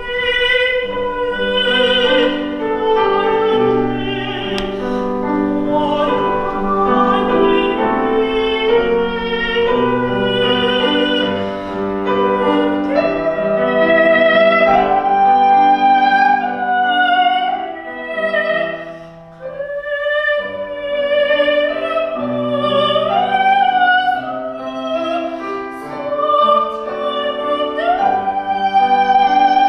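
Soprano singing in classical style with vibrato, accompanied by piano; the voice holds long notes and rises to high sustained phrases over piano chords, with a short break in the line about two-thirds of the way through.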